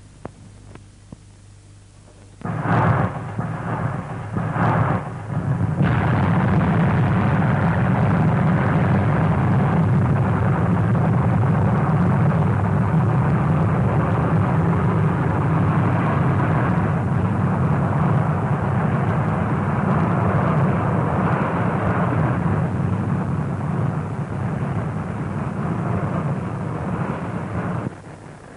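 A couple of clicks, then about two and a half seconds in a V-2 rocket's liquid-oxygen engine ignites in a few uneven bursts. From about six seconds on it runs as a loud, steady, deep roar of launch and climb, which falls off sharply near the end.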